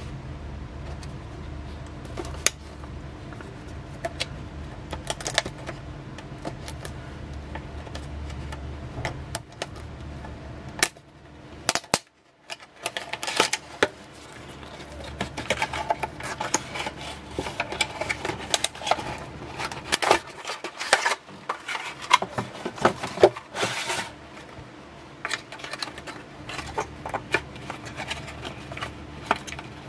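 Clear plastic and cardboard retail packaging being handled and opened: irregular clicks, crackles and rustles, busier and louder in the second half. A low steady hum sits under the first third and stops.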